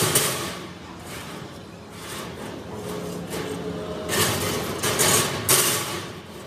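Cut steel sheet pieces being set down and slid across the steel top of a fuel tank: a few short scraping, clattering bursts, the loudest about four and five and a half seconds in.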